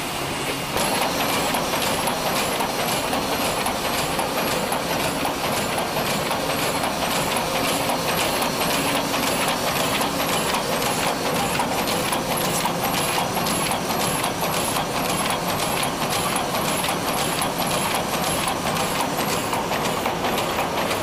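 Mitsubishi six-colour sheetfed offset printing press running: a steady mechanical clatter with rapid, regular ticking as sheets are fed through. It gets louder about a second in.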